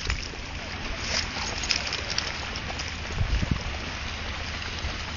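Wind buffeting the microphone over the steady hiss of the sea on an open beach, with a few low thumps a little over three seconds in.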